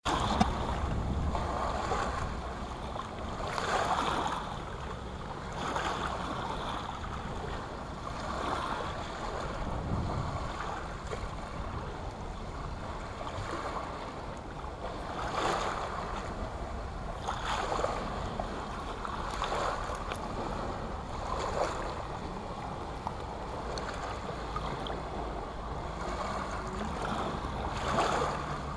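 Small sea waves lapping and washing in over shingle at the water's edge, swelling every few seconds as each wave runs up the pebbles and draws back.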